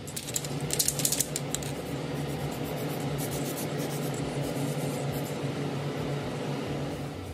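Fan running with a steady hum, and short bursts of hiss from an aerosol spray can spraying the earrings, mostly in the first few seconds.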